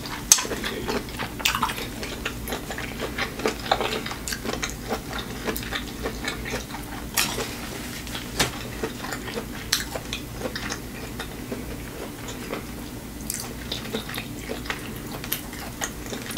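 Close-miked eating sounds: many small wet clicks and smacks, unevenly spaced, from chewing and from fingers handling shrimp and dipping it into sauce.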